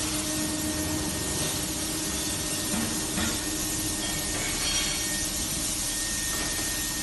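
Automatic metal-cutting bandsaw running: a steady hiss over a steady hum, with a few faint short clicks along the way.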